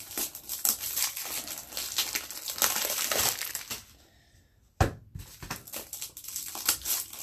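Crinkling of the plastic shrink-wrap being torn and pulled off sealed hockey card boxes, with a pause and then one sharp knock about five seconds in before the crinkling resumes.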